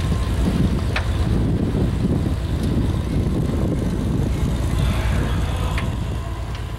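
A steam engine running with a fast, steady low beat, a few light clicks over it.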